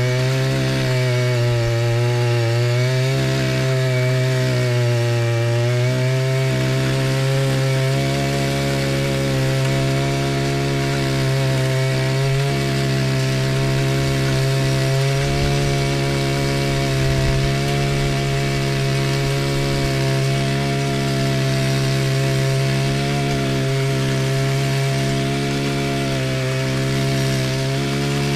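Small petrol garden tiller running as it churns soil, its engine note wavering up and down for the first few seconds, then holding steady.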